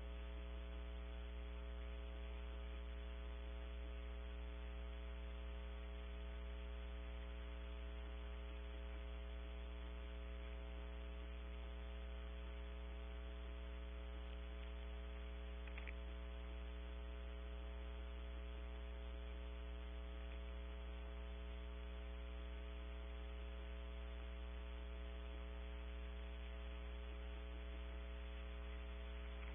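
Steady electrical mains hum with a long series of overtones from a nest-cam audio feed, unchanging throughout. There is one faint, brief sound about halfway through.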